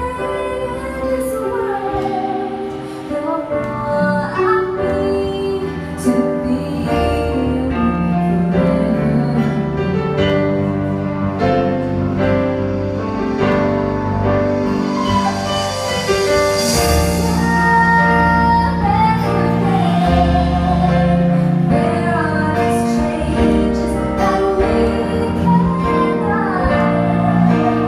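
Live pop ballad: a female singer with band accompaniment. About halfway her voice drops out briefly for an instrumental passage with a rising high shimmer, then she sings again.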